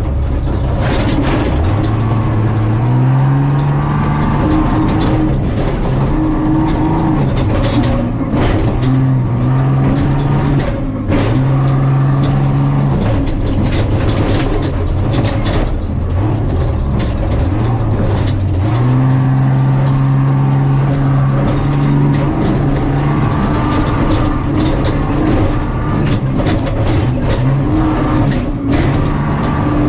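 Jeep Cherokee prerunner's engine, heard from inside the cab at speed on a dirt road, climbing in pitch and dropping back several times as the driver accelerates and lets off. Frequent sharp knocks and rattles from the truck jolting over the rough ground.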